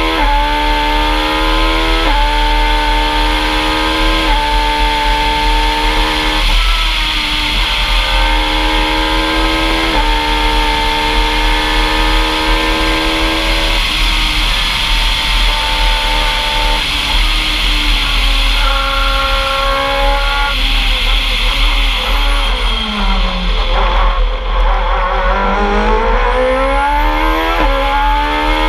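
Talex M2+ race car's engine at high revs, accelerating hard through the gears with a quick upshift every couple of seconds, each one a sudden drop in pitch. About three-quarters through, the revs fall away as it slows for a bend, then climb again as it accelerates out, over a steady rush of wind.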